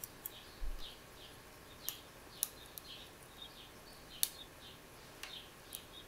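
Faint small metallic clicks of a hook pick lifting and tapping the pins inside a Geba pin-tumbler cylinder under tension from a wiper-blade tension wrench, a handful of sharp clicks scattered through. A faint high chirp repeats two or three times a second underneath.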